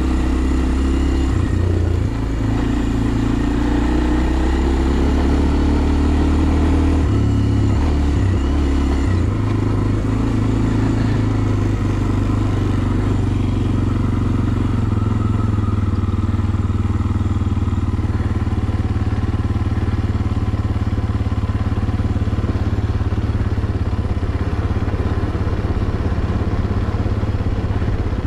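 Kawasaki KLX230R dirt bike's single-cylinder four-stroke engine running while ridden, its note shifting with throttle and gear changes about two seconds in and again around seven to nine seconds in, then holding steadier.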